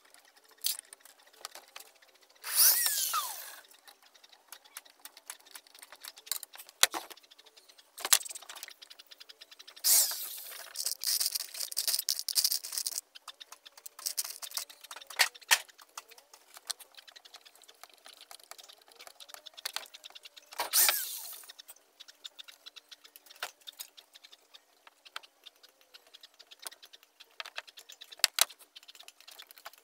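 Cordless drill running in short bursts, driving screws to fix metal corner brackets into plywood: once a few seconds in, a longer choppy run around ten seconds in, and again near twenty-one seconds. Small sharp clicks and taps of handling between the bursts.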